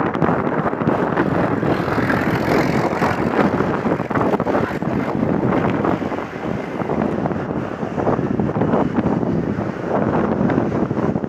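Wind buffeting the microphone over the steady, broad rumble of a Philippine Airlines Airbus A330-343's Rolls-Royce Trent 700 jet engines as the airliner moves along the runway.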